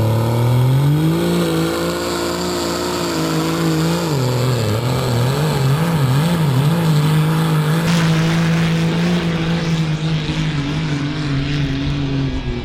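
Dodge Ram diesel pickup's engine at full throttle pulling a weight-transfer sled. The engine note rises in the first second or two, wavers up and down around the middle, holds steady, then drops a little near the end.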